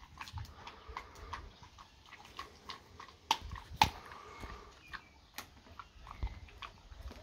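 A dog eating a snack off a tiled floor: irregular sharp clicks and crunches, with two louder clicks about three and four seconds in.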